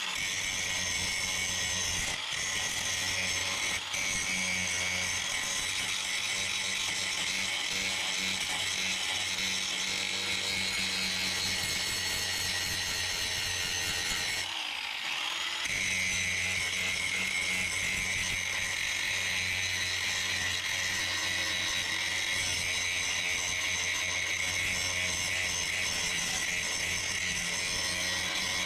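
Cordless angle grinder with a flap disc grinding down tack welds on a car's steel firewall: a steady motor whine with a grinding hiss. About halfway through it briefly eases off, then picks back up.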